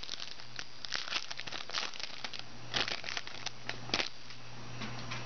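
Foil wrapper of a trading-card pack crinkling and crackling as it is handled, with several sharper snaps, over a steady low hum.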